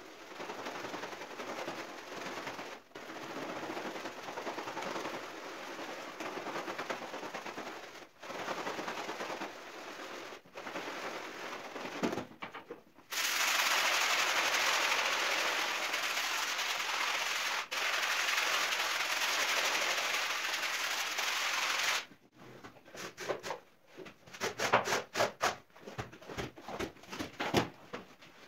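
Stiff scrub brush scrubbing a wet, foamy rug, a rasping noise in runs of strokes with brief breaks. Partway through it gives way to a loud steady hiss that cuts off suddenly. A quick series of short, sharp scraping strokes, several a second, follows.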